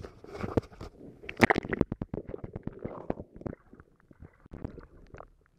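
Water splashing as the camera is plunged into the lake, then muffled underwater gurgling and bubbling with irregular knocks, heard through the submerged camera as a bass is released. Loudest about a second and a half in, then fainter.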